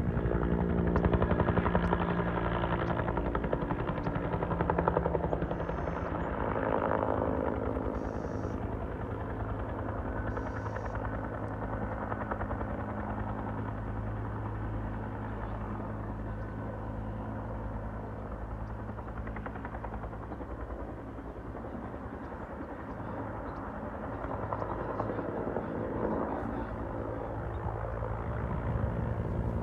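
Helicopter rotor beating steadily, louder in the first few seconds, fading somewhat through the middle and growing louder again near the end.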